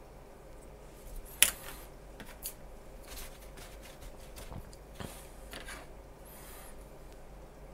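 Small handling noises from a paintbrush and a small plastic model part being handled over a cutting mat: one sharp tap about a second and a half in, then lighter taps and rubbing.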